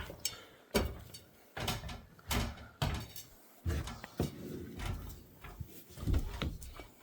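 Irregular knocks and clunks, about a dozen spaced half a second to a second apart, with small-room echo.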